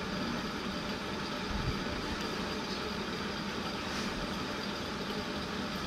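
Sliced onions and bay leaves sizzling steadily in hot oil in a nonstick pot, over a steady low hum, with a soft knock about one and a half seconds in.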